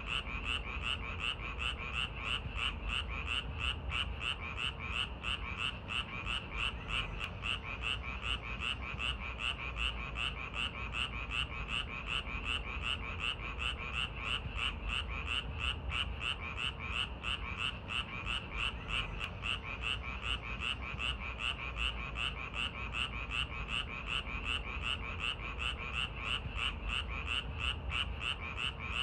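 A chorus of frogs croaking: a dense, steady run of short, rapid calls, about two to three a second, that keeps on without a break.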